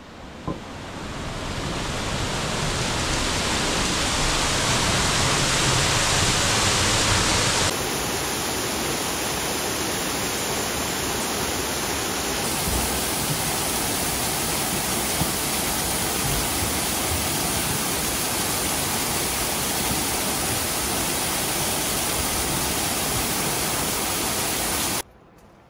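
Waterfall pouring off a rock overhang at close range: a loud, steady rush of falling water. It swells in over the first two seconds, changes abruptly about eight seconds in, and stops suddenly just before the end.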